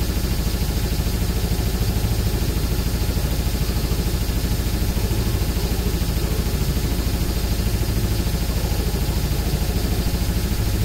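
Old school death metal: a rapid, machine-even programmed double-bass kick drum under dense distorted guitars and bass.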